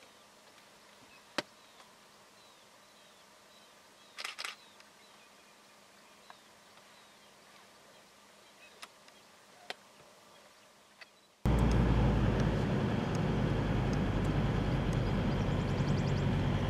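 Quiet outdoor ambience with faint chirping and a few sharp clicks. About eleven seconds in, a loud, steady vehicle engine rumble cuts in abruptly.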